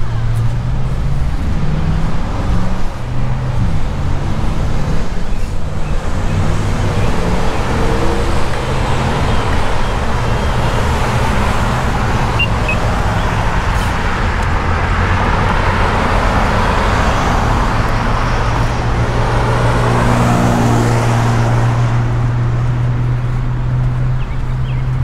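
Street traffic: vehicle engines running, with tyre and engine noise swelling and fading as a car passes through the middle, then a steady low engine hum in the last few seconds.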